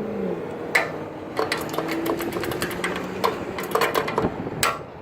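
Crosswalk push button being pressed over and over, giving sharp, irregular mechanical clicks about three times a second, with no walk response: the button doesn't work. A steady low hum runs underneath.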